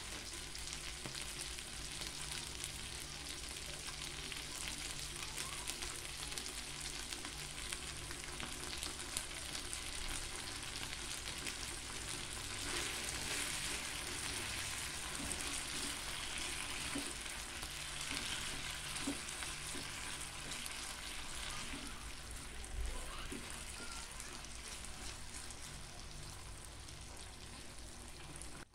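Chicken feet and garlic sizzling as they fry in a nonstick pan, stirred with a silicone spatula about halfway through, where the sizzle briefly grows louder.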